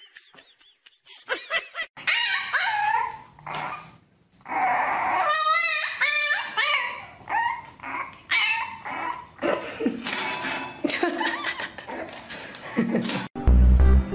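Puppies whining and yipping from about two seconds in, in cries that slide up and down and waver in pitch. Music comes in just before the end.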